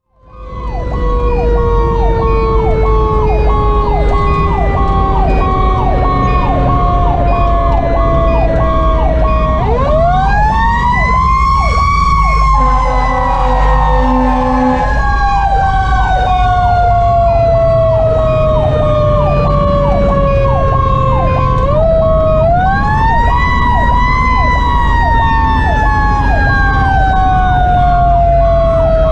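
Fire engine sirens: a Federal Q2B mechanical siren winds down in a long falling wail and is spun up twice with a rising wail, over a Sho-Me Powercall electronic siren's fast repeating yelp. About halfway through, the Grover air horns blow for about two seconds. The truck's diesel engine runs underneath.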